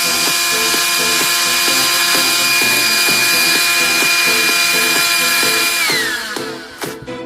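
Small electric motor of a handheld cordless vacuum cleaner running with a steady high whine, then winding down in pitch and stopping about six seconds in.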